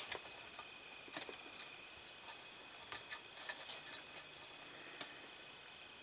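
Faint, scattered light clicks and rustles of fingers moving wiring and small connectors on a plastic model car chassis, with one sharper click about three seconds in.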